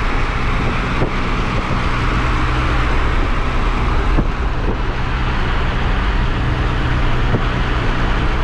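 A car engine running at a steady speed with an even hum, under a constant hiss of road and wind noise.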